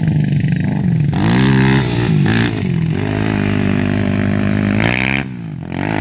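Sport ATV engine revving hard, its pitch climbing and dropping several times with the throttle as the quad accelerates across sand. There is a short drop in level near the end before it revs up again.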